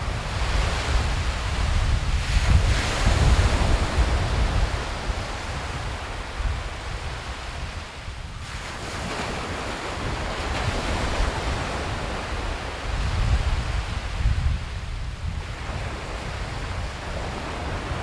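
Surf washing up on the beach and drawing back in long swells, with wind buffeting the microphone as a low rumble throughout. The wash dips briefly about eight seconds in and again near fifteen seconds.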